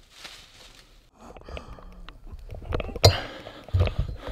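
A compound bow being shot: a single sharp snap with a brief metallic ring about three seconds in. Soft rustling comes before it and a few dull thumps follow.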